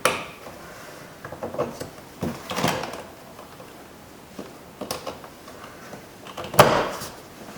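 Clicks and short knocks of plastic trim as the courtesy light is connected and fitted into a 2000 Buick LeSabre's rear door panel, with a louder knock near the end.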